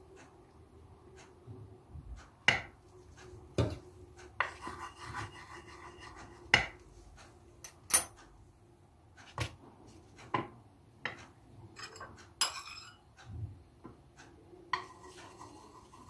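Scattered light clicks and knocks of small objects handled on a plastic tray: a small bottle set down, fruit slices laid on paper, and a metal teaspoon. A faint steady hum runs underneath.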